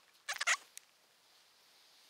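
Handling of a textile motorcycle tail bag and its strap hooks: a brief rattle of several quick scuffing clicks, then one more single click.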